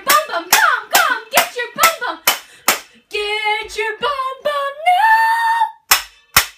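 A girl clapping out a steady beat, about two claps a second, with her voice on the beats. She then sings a short line that rises to a held note, and claps twice more near the end.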